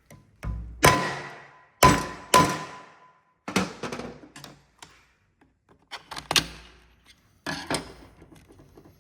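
A plastic remote control casing being struck hard to force it open: a series of sharp knocks, often in pairs, each with a brief ringing tail.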